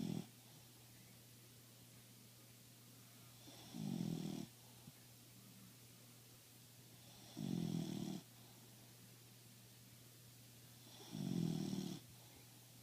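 A dog snoring in a slow, even rhythm: the tail of one snore right at the start, then three more, one about every three and a half seconds, each lasting about a second.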